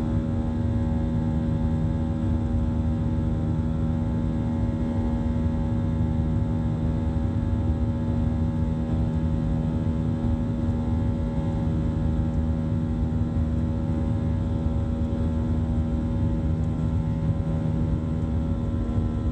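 Cabin sound of a Boeing 737-800 during takeoff: its CFM56 turbofan engines give a steady low rumble with several constant humming tones layered over it, unchanged throughout, the engines holding high thrust.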